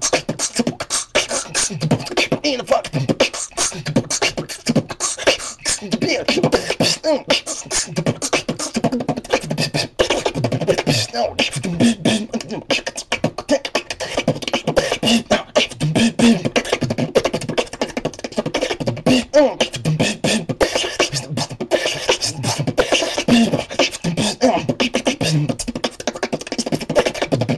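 A beatboxer performing vocal percussion: a fast, unbroken run of sharp click and snare sounds over short, low pitched bass notes.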